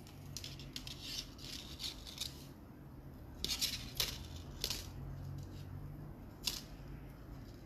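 Fine metal jewellery wire and a small metal earring frame clicking and rattling faintly as they are handled and wrapped by hand, with a few sharper clicks about halfway through.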